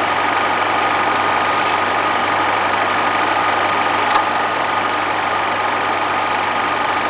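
Steady mechanical whirring like a small motor running, unchanging throughout, with one short click about four seconds in.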